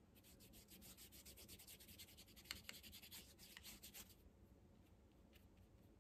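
Faint, rapid scratching of a watercolor brush dabbing and scrubbing on sketchbook paper in short quick strokes, stopping about four seconds in.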